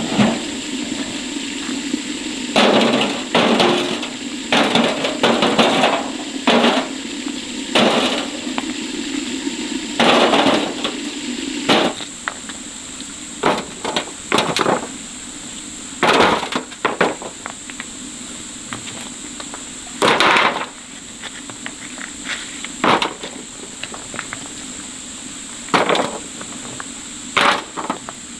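Irregular hammer blows knocking on wood, more than a dozen spaced a second or more apart, some with a short ring after the strike. A steady high insect drone runs underneath.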